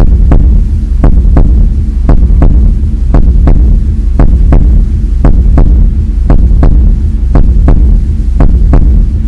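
A loud, steady low hum with sharp ticks repeating about two to three times a second, a throbbing pulse.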